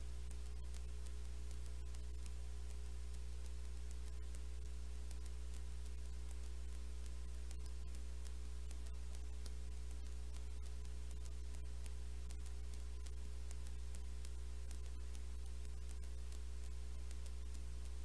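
Steady electrical hum with faint crackling static, unchanging throughout.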